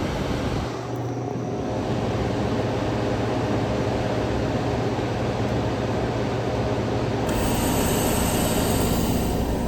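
1959 Welbilt Wall-Slim heat pump running in heating mode, with its compressor humming steadily under the rush of its fan. A high hiss comes in about seven seconds in and stops just before the end.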